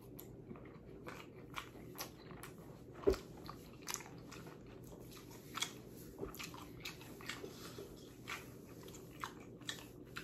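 A person chewing a mouthful of noodles with faint, irregular wet smacks and clicks of the mouth, with one sharper click about three seconds in.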